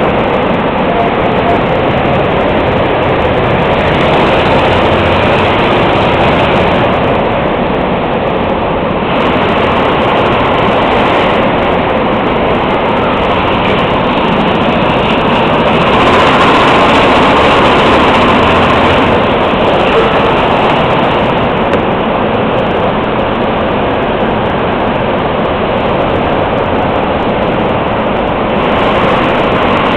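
Go-karts running around an indoor track: a loud, steady running noise that swells and eases a little as karts pass, loudest around the middle.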